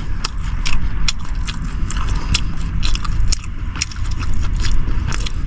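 A person chewing and gnawing meat off spine bones close to the microphone, with frequent irregular crunching clicks, over a low steady rumble.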